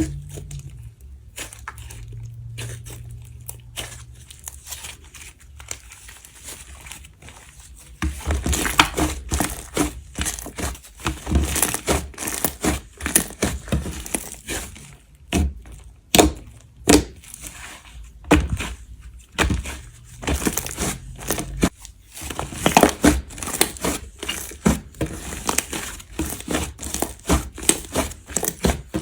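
Slime being squished and pressed by hands, giving many small crackles and clicks. The sound is quieter for the first several seconds, then becomes loud, dense crackling about eight seconds in.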